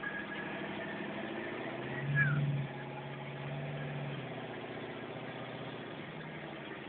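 Freshly rebuilt twin-turbo Ford 351 Windsor V8 running on its first start, mostly a steady idle with a short rise in revs about two seconds in.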